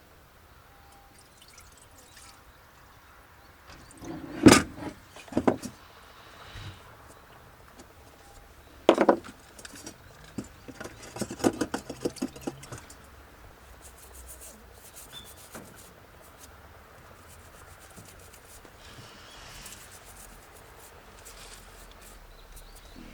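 Handling noises: a few sharp knocks, the loudest about four and a half seconds in and another near nine seconds, then a short rattling clatter of small hard objects.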